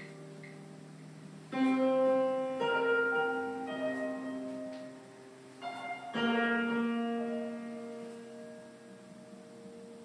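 Background music: slow piano chords struck and left to ring and fade, with a new chord about a second and a half in and another about six seconds in.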